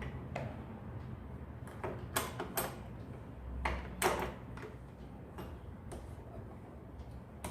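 A series of irregular clicks and light knocks from parts of an electric sewing machine being handled and fitted back in place around the bobbin case.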